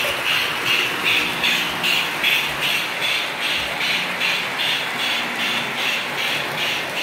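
O scale model train running on the layout track, a steady mechanical rattle pulsing evenly about two and a half times a second.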